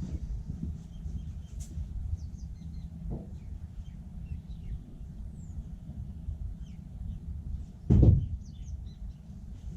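Small birds chirping faintly over a steady low rumble, with one loud thump about eight seconds in.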